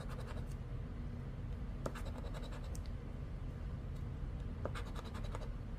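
Poker-chip scratcher scraping the coating off a paper scratch-off lottery ticket, in three short bursts of quick strokes a couple of seconds apart.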